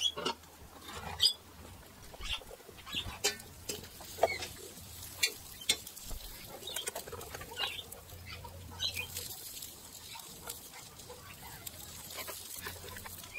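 Food preparation at a wood-fired pan: irregular sharp clicks and knocks as sausages go into the frying pan and are handled, and a knife starts on a wooden chopping board, over a faint hiss.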